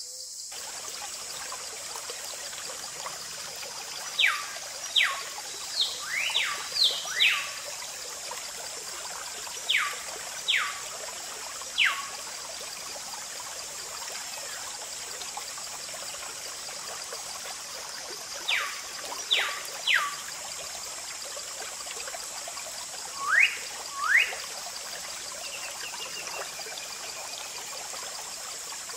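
Water from a small pump's tube trickling and pouring onto a toy backhoe loader. Over it come bird calls, quick falling whistles in twos and threes, with two rising whistles later on, and a steady high hiss underneath.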